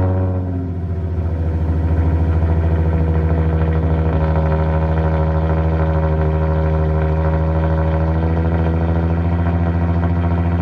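Nissan 350Z's 3.5-litre V6 idling steadily just after starting, the revs settling down in the first second.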